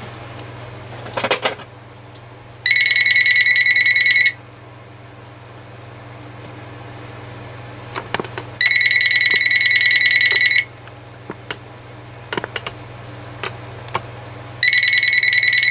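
Uniden EXI2960 900 MHz cordless phone ringing with an incoming call: three electronic warbling rings, each about two seconds long and about six seconds apart, the third starting near the end. A short clatter comes about a second in, before the first ring.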